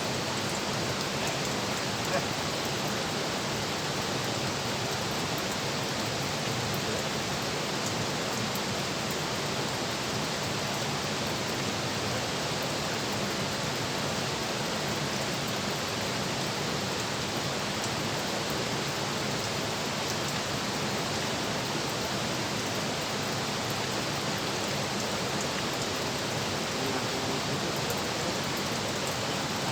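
Steady rush of water flowing over or through a dam, an even hiss that does not change.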